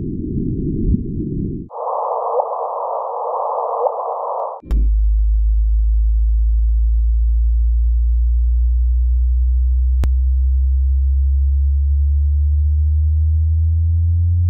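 Sonified space data, electronic and tone-like: blocks of hiss switch between a higher and a lower band over a steady tone. About five seconds in, it cuts to a loud low drone with tones above it that slowly rise in pitch, like a drawn-out chirp.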